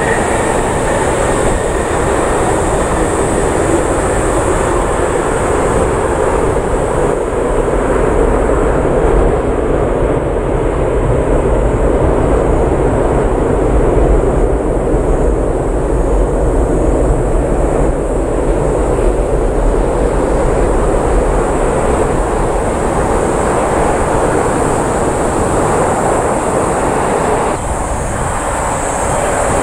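Boeing 747-400's jet engines roaring as the airliner rolls out after touchdown. The low rumble grows heavier a few seconds in, then eases near the end as the aircraft rolls away down the runway.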